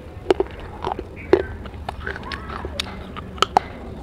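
Close-up chewing of pieces of baked clay saucer, with sharp crunches at irregular intervals.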